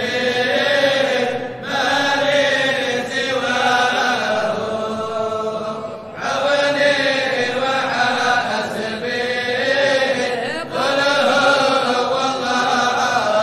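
Chanting of a Sufi qasida in Arabic: long melodic sung phrases separated by brief breaks, three phrases in all.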